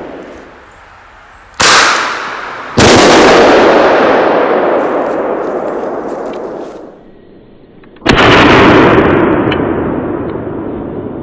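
15 mm bird bangers fired from a blank-firing pistol. A sharp crack comes about one and a half seconds in, then a loud bang a second later that rumbles away over about four seconds. Another loud bang about eight seconds in dies away just as slowly.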